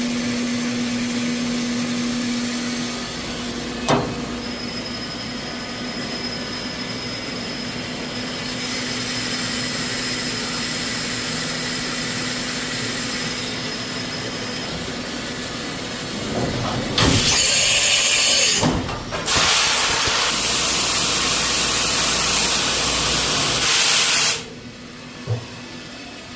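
CNC machining centre running with a steady mechanical hum and a single click a few seconds in. About two-thirds of the way through a loud hiss starts, breaks off briefly, resumes for several seconds and then cuts off suddenly.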